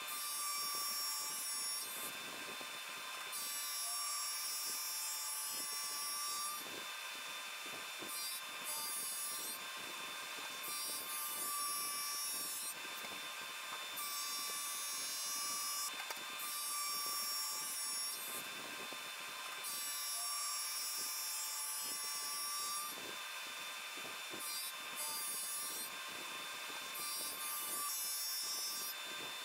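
SuperMax drum sander running with a steady whine, sanding a birch crotch slab flat as the conveyor feeds it under the drum.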